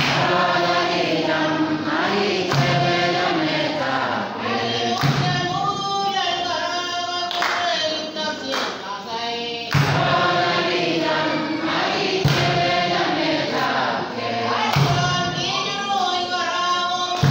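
A choir singing, several voices together, with sharp knocks every two to three seconds.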